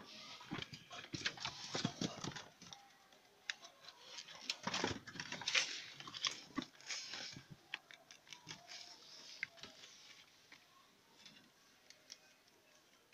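Young rabbits scrabbling and rustling in a wire-floored hutch: irregular clicks and rustles, busiest in the first seven seconds and thinning out toward the end.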